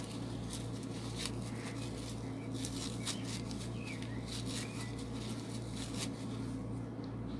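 Tissue paper rustling and crinkling as it is pulled off an acrylic diamond painting pen, busiest in the first couple of seconds, over a steady low hum. A few faint short chirps in the second half.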